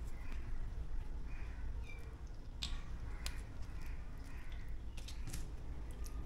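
Sharp clicks and taps of hands handling a stuffed squid and pushing a thin stick through it to pin it shut, over a steady low hum, with short faint bird calls in the background.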